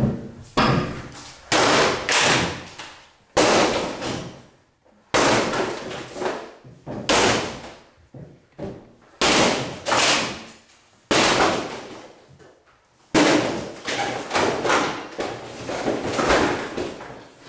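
A door panel being smashed through with repeated blows: about a dozen sudden crashes at irregular intervals of one to two seconds, each trailing off over about a second.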